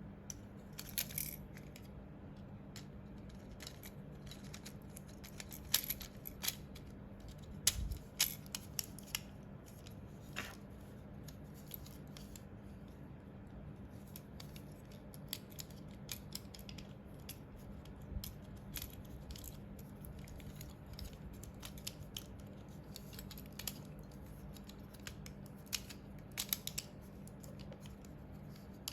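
Small plastic clicks and taps while a computer mouse is handled during a switch repair, coming irregularly with a few louder ones in the first third, over a faint steady low hum.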